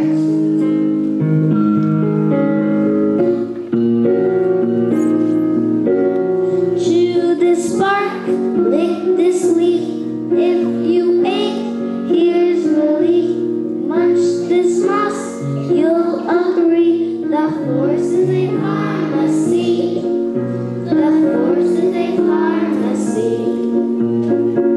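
Group of young children singing a song with instrumental accompaniment.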